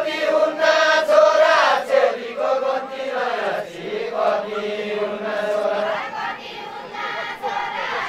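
A line of men singing a Deuda folk song together in a group chant of long, drawn-out notes that slide up and down in pitch, loudest in the first couple of seconds.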